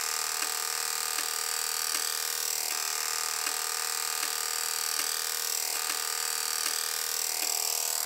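Electromechanical LED chaser running: a steady electric buzz from its drive, with its rotary selector switches clicking as they step across their contacts, about one click every three-quarters of a second. The sound cuts off suddenly at the end.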